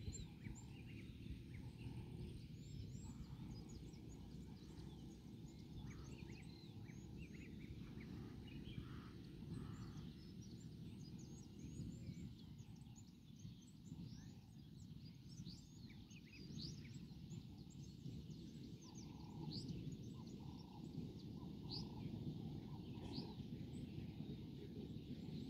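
Many small birds chirping in quick, scattered calls over a steady low rumble.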